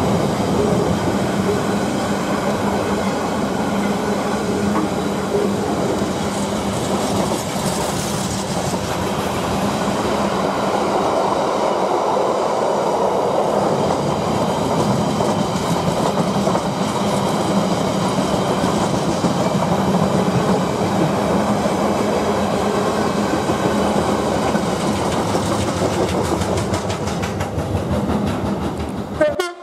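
A container freight train's flat wagons rolling past: a steady noise of steel wheels on the rails, with a quicker run of clicks near the end as the last wagons go by. The sound then cuts off suddenly.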